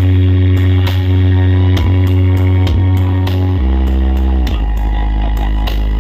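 Loud dance music from a 'horeg' sound-system rig, with a heavy, sustained bass line and held chords over a steady beat; the bass drops lower about three and a half seconds in.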